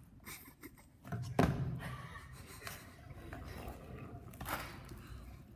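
Two sharp knocks on a hard surface, the louder about a second and a half in and a weaker one near four and a half seconds, with faint scraping between, echoing in an enclosed space.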